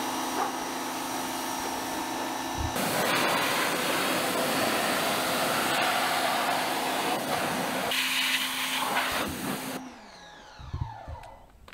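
Pressure washer running with a steady hum, its water jet hissing loudly against a car's wheel and tyre from about three seconds in. The spray and motor cut off shortly before the end.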